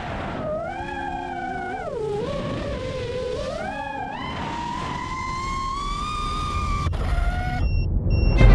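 Motors and propellers of a Nazgul Evoque FPV quadcopter whining in flight, the pitch sweeping down and back up with the throttle in the first half, then climbing slowly. The whine cuts off suddenly near the end, leaving a brief pair of high steady tones.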